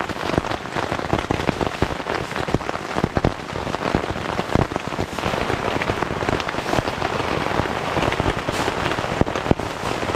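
Heavy rain pattering densely and without pause on the fabric of a NatureHike Vik tent, heard from inside the tent.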